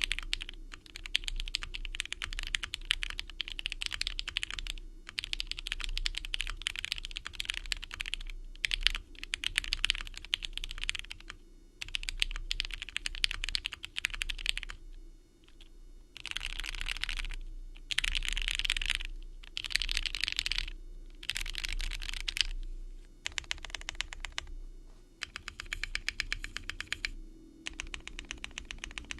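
Typing on the Inky60 60% mechanical keyboard, plateless and gasket-mounted with Poron foam, with ThicThock Marshmallow switches under AKAP Heartbeat keycaps. Keystrokes come in rapid continuous runs broken by short pauses, the longest about halfway through.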